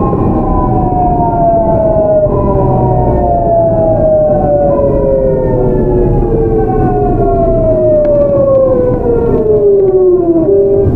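GEC Alsthom GTO VVVF inverter and traction motors of a Seoul Metro 8000-series train, several whining tones falling steadily in pitch together as the train slows under braking, over the low rumble of the running train. Near the end the whine jumps abruptly to a different set of tones.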